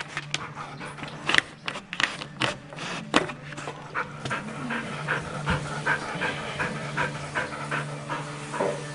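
A dog panting in quick, even breaths, about three a second, from about four seconds in. Before that come a few sharp clicks and knocks.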